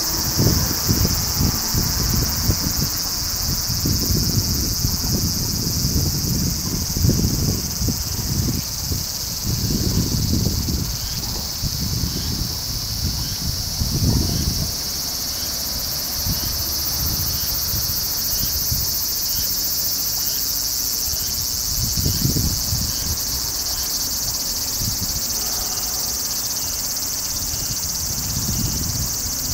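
Steady, high-pitched chorus of insects such as crickets, with irregular gusts of wind rumbling on the microphone.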